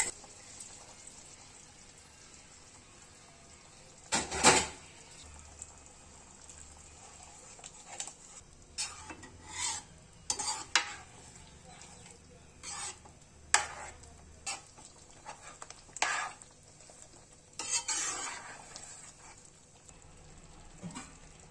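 Ladle stirring a thick brinjal curry in a nonstick kadai: about a dozen irregular scraping strokes against the pan, the loudest about four seconds in. It is the ground paste being mixed into the simmering gravy.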